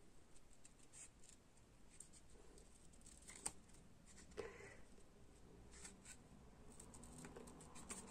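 Small scissors cutting slowly around a design in watercolour paper: a few faint, irregular snips.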